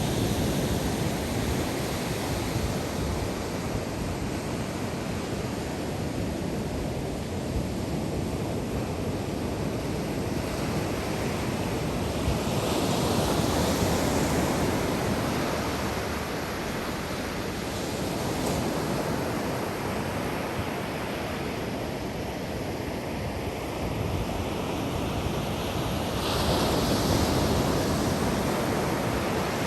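Ocean waves breaking and washing up on a sandy beach, a steady surf roar that swells as waves break about halfway through and again near the end, with some wind on the microphone.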